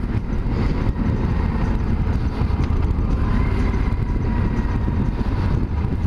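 Yamaha Super Ténéré 1200 parallel-twin motorcycle engine running on the road, under a steady, heavy wind rumble on the camera microphone. A faint engine tone lifts slightly about halfway through.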